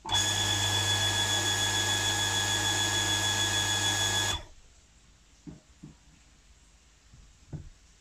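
Electric surface water pump starting abruptly and running with a steady hum and high whine for about four seconds, then stopping: the pump being switched on and off by a newly fitted float switch under test. A few faint knocks follow.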